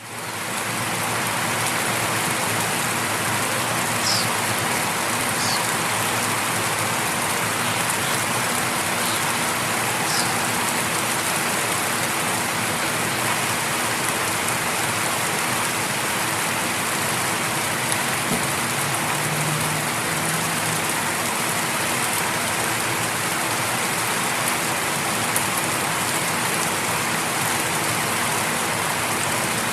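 Light rain falling steadily on leaves, grass and concrete, an even patter. A few short high chirps, birds, come in the first ten seconds, and a faint low hum of distant traffic comes and goes past the middle.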